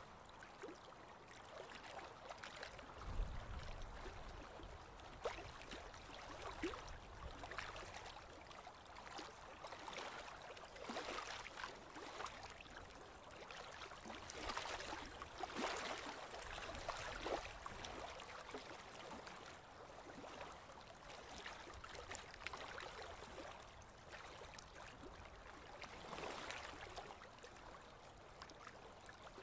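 Water lapping and splashing against the side of a boat: a faint rushing hiss with many small, irregular splashes, and a brief low rumble about three seconds in.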